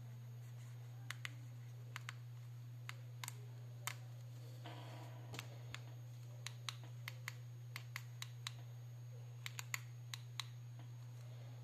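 Plastic keypad buttons of an iKU V100 feature phone clicking as they are pressed: about twenty irregular presses, some in quick pairs, over a steady low hum.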